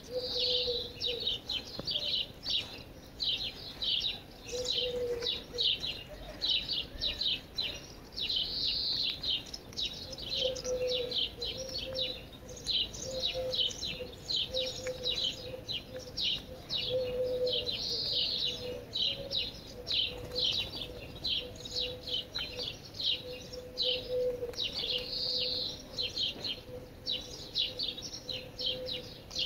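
Small birds chirping continuously, several short chirps a second, with a fuller warbling phrase every several seconds; a faint steady low hum runs underneath.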